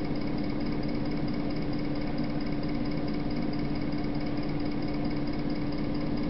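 Steady electrical buzz with a low hum under a wash of hiss, unchanging throughout: interference on the video signal, matching the rainbow bands over the picture.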